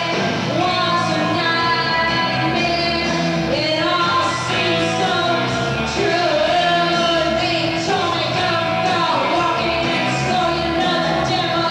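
A rock band playing live with a woman singing into a microphone over it.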